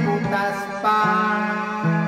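Man singing into a handheld microphone over a karaoke-style backing track with guitar, his voice moving through a line and then settling into steady sustained notes about a second in.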